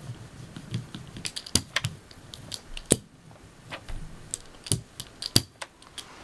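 Hand rubber brayer rolled back and forth over paper on a lino block, a soft low rumble at first, then irregular clicks and taps, a few of them sharp. The rolling presses out air bubbles so the photocopy bonds to the matte medium for the image transfer.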